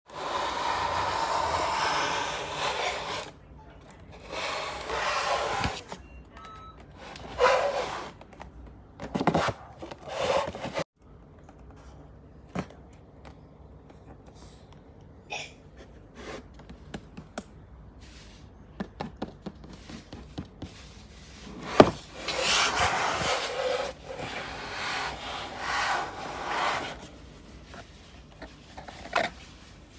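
Hands rubbing, scraping and tapping on a cardboard toy box with a clear plastic window: a run of swishing strokes with quiet gaps, a few light ticks, one sharp tap about 22 seconds in, then a longer stretch of rubbing.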